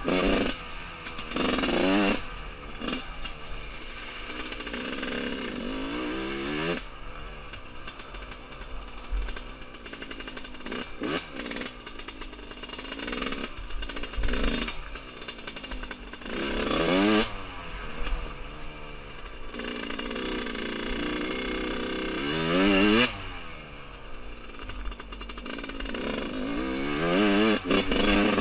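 1999 Yamaha YZ125's two-stroke single-cylinder engine being ridden hard. Its pitch climbs and drops again and again as the throttle is opened, shut and the gears are changed.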